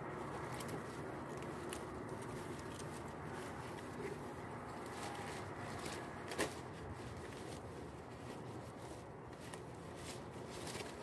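Large fresh leaves rustling and crackling as they are handled and fitted onto a plaited woven band, with one sharper snap about six seconds in.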